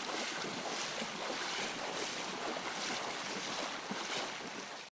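Floodwater splashing and washing around the legs of a person wading through it, a steady wash of water noise that cuts off abruptly near the end.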